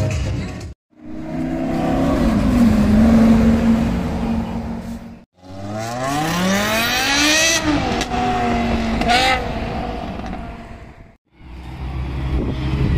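Car engines heard in three short clips split by brief breaks. The first is an engine revving. In the second, a car accelerates hard with a steadily rising pitch, drops back, then gives a short blip of the throttle. In the third, a Ferrari 360 Spider's V8 runs low and steady as it pulls out.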